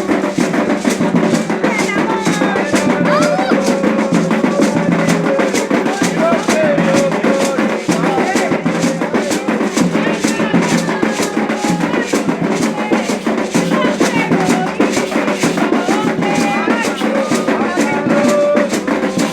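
Candomblé ritual music for Xangô: hand drums beating a steady fast rhythm with a shaken rattle, under group singing.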